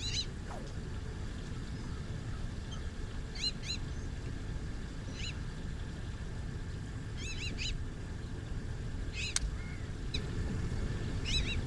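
Short, arched bird calls in quick pairs or threes, repeating every couple of seconds, over a steady low rumble. A single sharp click comes about nine seconds in.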